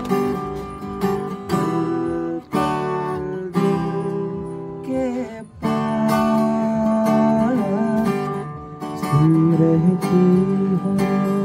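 Acoustic guitar strummed in chords with a voice singing along in long held notes, a live song performance.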